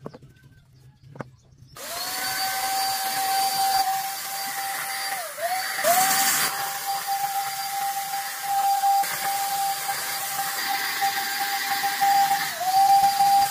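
Handheld electric paint spray gun running with a steady motor whine and a hiss of spray, starting about two seconds in. Its pitch dips briefly twice, about a third of the way in and near the end, as the trigger is eased and pressed again.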